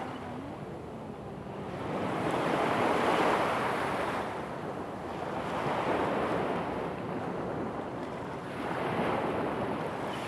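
Sea surf: small waves breaking on a pebble shore, the wash swelling and falling back about every three seconds.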